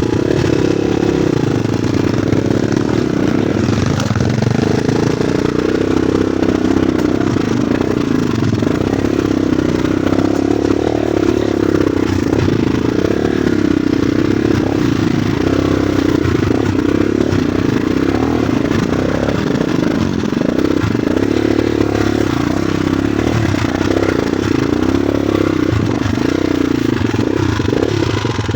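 Vehicle engine running steadily under way, its pitch wavering slightly, with rattling and scraping over a rough low rumble.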